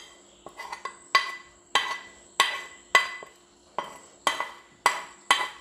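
Metal spoon knocking and scraping against a frying pan and a steel bowl as fried chicken pieces are pushed from the pan into the bowl: about two clinks a second, each ringing briefly.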